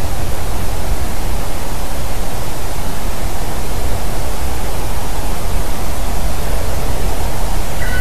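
Steady loud rushing noise on an outdoor nest camera's microphone, heaviest in a low rumble with hiss above. Right at the end a black woodpecker's whistled call begins, a clear note that steps down in pitch.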